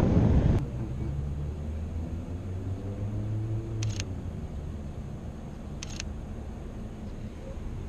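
Sony A7II camera shutter firing twice, a sharp click about four seconds in and a quick double click about six seconds in. Street traffic underneath: a loud low rumble that cuts off about half a second in, then a steady low engine hum that fades after about four seconds.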